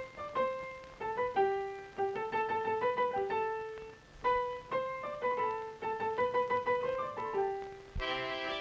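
Cartoon score: a piano plays a melody of single struck notes, each fading, about two or three a second with brief pauses. Near the end a sustained reedy accordion-like chord takes over.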